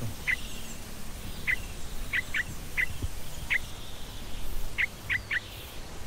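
A bird giving about nine short, sharp call notes, some single and some in quick runs of two or three.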